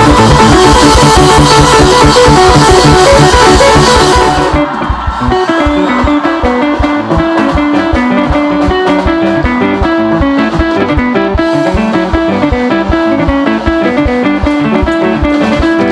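Upbeat music led by electric guitar over bass and a steady beat. For about the first four seconds it is louder and denser, then it drops back to clearer picked guitar lines over the rhythm.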